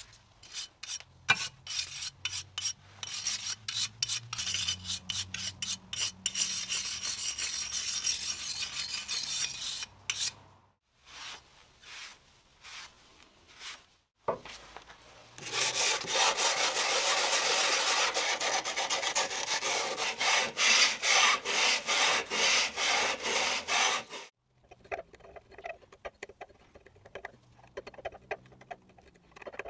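An abrasive pad scrubs loosened rust off the steel blade of an antique Henckels meat cleaver in quick back-and-forth strokes. The strokes come in spells: a long run at the start, a few strokes around the middle, then the loudest, densest run, and fainter scratching near the end.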